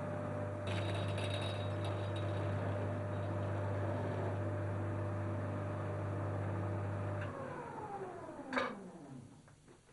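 Small lathe's electric motor running with a steady hum, with a brief scraping at the start. About seven seconds in it is switched off, and its whine falls in pitch as it winds down, with a single sharp knock near the end.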